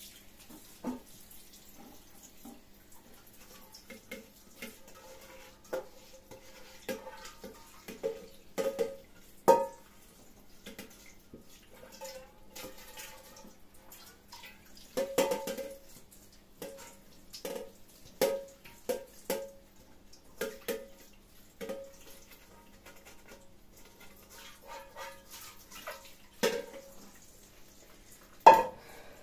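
Kitchen work: irregular clinks and knocks of pots, dishes and utensils, some with a short metallic ring, with a little water splashing; the loudest clink comes near the end.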